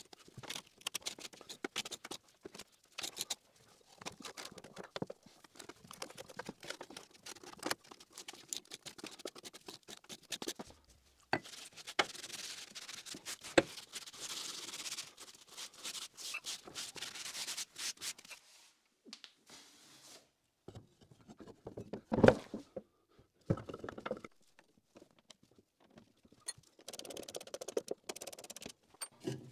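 Sped-up scraping of a metal scraper over grimy sheet metal, a dense run of scratches and clicks, followed by rubbing as the surface is wiped with a rag. One loud knock comes about two-thirds through, and near the end a socket ratchet clicks as bolts are run in.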